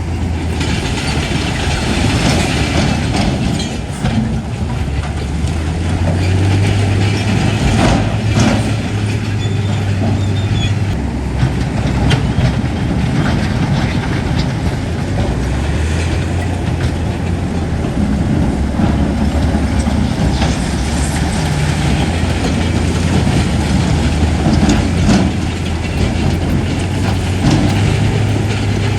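Heavy bulldozer's diesel engine running hard, its note dropping and rising a few times, with scattered metallic clanks and rattles from the machine.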